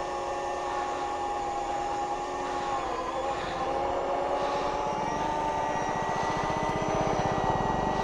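Ather electric scooter doing a burnout: the motor and belt drive whine steadily while the worn rear tyre spins and scrubs against the road. A rough low rumble joins about five seconds in.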